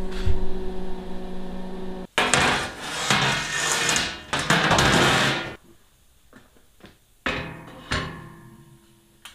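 A heavy steel plate scrapes and grinds as it is shifted into place on a steel bench frame for about three seconds. Then come three sharp metal clanks, each ringing briefly as it fades.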